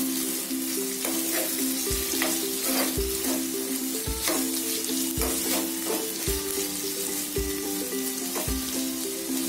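Chopped onions sizzling in hot oil in a small frying pan, stirred with a metal spatula in repeated strokes. Background music with a steady beat plays throughout.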